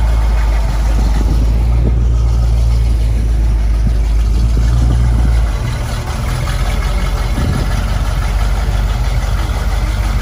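Batmobile replica car's engine running at low revs: a loud, steady, deep rumble. About halfway through, the rumble drops a little and changes.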